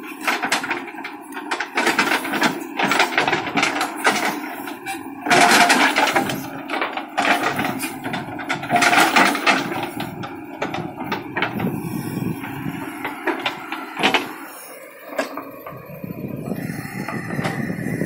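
JCB backhoe loader digging with its backhoe arm: the engine runs steadily under irregular clanks and knocks from the bucket and boom linkage. A thin, steady high whine comes in near the end.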